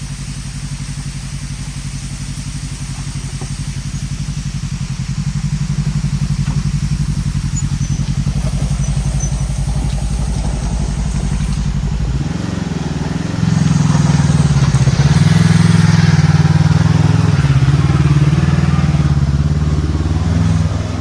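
Off-road vehicle engine running steadily, then from about 13 seconds in pulling harder and louder, its pitch rising and falling, before easing off near the end.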